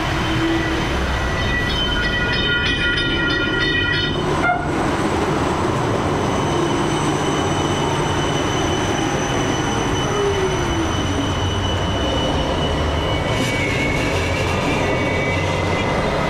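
Shenzhen Tram, a low-floor modern tram, running past close by on its street track: a steady loud rumble of wheels and drive, with several steady high whining tones over it. There is a single sharp knock about four and a half seconds in and a falling tone about ten seconds in.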